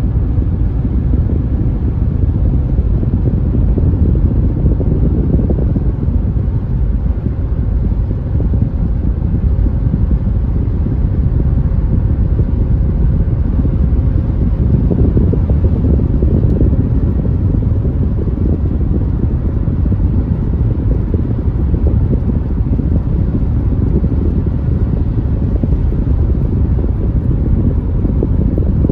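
Steady low rumble of a car in motion heard from inside the cabin: tyre, engine and wind noise while cruising on a highway, unchanging throughout.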